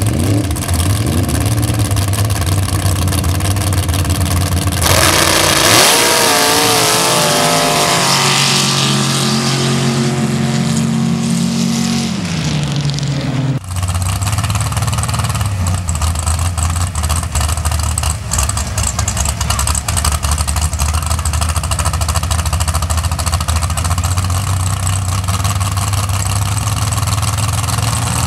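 Dirt drag truck's race engine with open zoomie-style exhaust stacks idling, then opened up to full throttle about five seconds in, its pitch climbing for several seconds before the sound breaks off abruptly. It then idles again with a choppy, uneven pulse.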